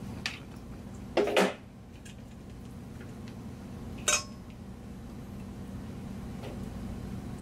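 Silicone spatula scraping sticky fish-and-tofu paste out of a plastic food processor bowl into a stainless steel mixing bowl, with a few knocks and clinks against the bowls; the loudest comes about a second in. A steady low hum runs underneath.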